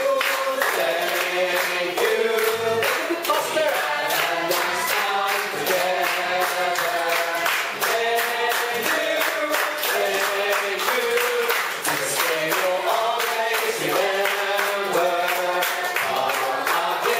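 A choir singing a song over a steady beat.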